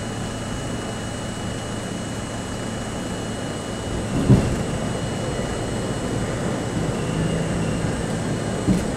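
New York City subway C train running slowly into a station, heard from inside the lead car: a steady rumble of wheels and car body with a faint thin whine. There is a single knock about four seconds in and a smaller one near the end.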